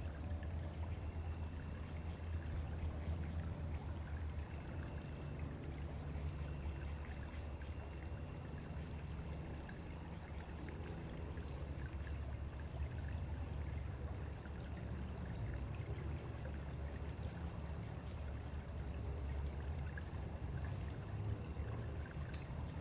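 A small stream flowing and trickling steadily, with a low rumble underneath.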